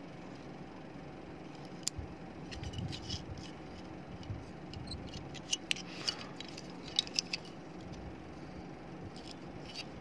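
Scattered light clicks, taps and rattles of a disassembled phone charger's plastic casing and circuit board being handled and set down on a cloth-covered table.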